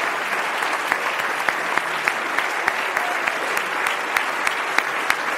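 Audience applauding. One nearby pair of hands claps louder than the rest, about three times a second.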